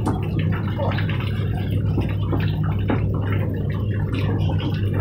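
Water from a hose running and splashing as a metal birdcage is washed down, with small irregular knocks and drips, over a steady low hum.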